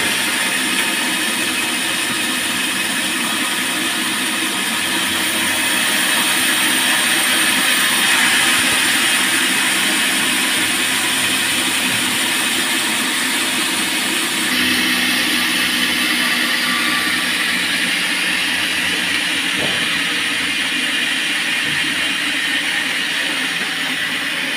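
Band sawmill running steadily: a dense, unbroken mechanical noise with a strong hiss. Its sound changes abruptly about two-thirds of the way through.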